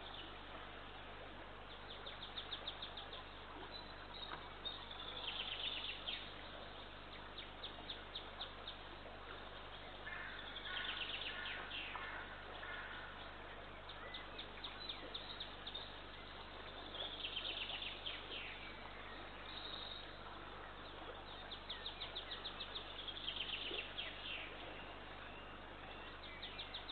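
Birds calling in short runs of rapidly repeated high notes, a burst every few seconds, over a steady hiss and low hum.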